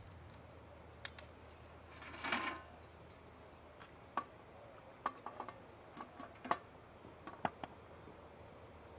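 Serving utensils clinking and tapping against metal pots and fluted metal plates as rice and stew are dished out: a scattered string of light clinks, with a short scrape about two seconds in.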